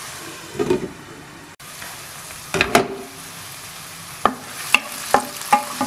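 Sliced mushrooms sizzling in coconut oil in a non-stick frying pan while a spatula stirs them. The spatula knocks sharply against the pan in a quick cluster about two and a half seconds in, then four more single knocks about half a second apart.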